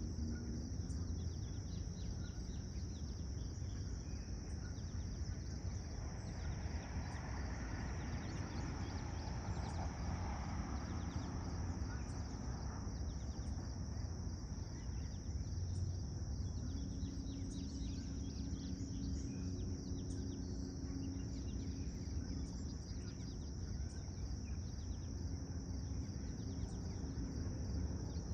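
Summer insects droning in one steady high pitch, over a constant low rumble of background noise, with a few faint chirps.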